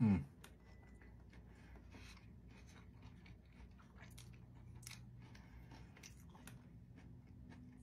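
A person chewing a mouthful of a crispy chicken-strip tortilla wrap, with faint irregular crunches and mouth clicks. Right at the start there is a brief, loud falling tone.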